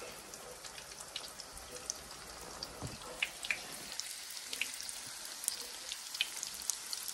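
Dumplings pan-frying in hot cooking oil: a steady low sizzle dotted with scattered sharp crackles and pops of spattering oil.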